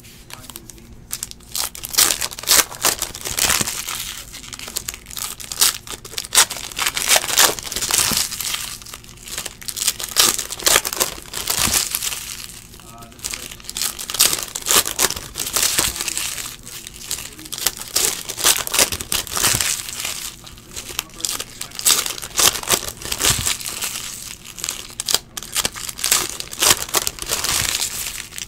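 Foil wrappers of Donruss basketball card packs being torn open and crinkled by hand, a dense run of crackling that goes on without a break.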